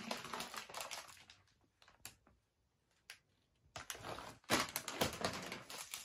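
Crinkling and rustling of gift packaging as it is handled and unwrapped, in two dense spells of sharp crackles with a quieter gap of about two seconds between them, broken only by a few separate clicks.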